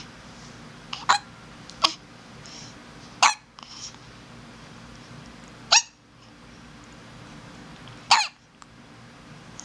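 A baby hiccupping: five short, sharp hiccups, irregularly spaced from under a second to a few seconds apart.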